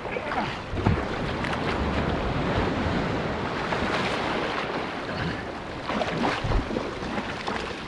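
Waves washing in the surf, with wind buffeting the microphone in a few low thumps.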